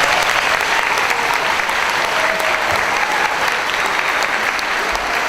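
Audience applauding steadily after a musical act.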